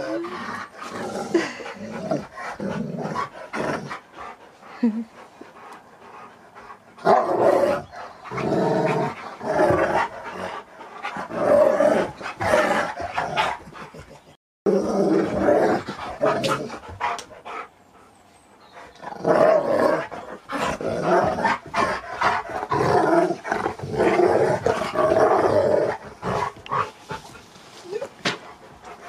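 Two husky-type dogs growling and grumbling at each other in rough play, in two long loud bouts with a short lull between them.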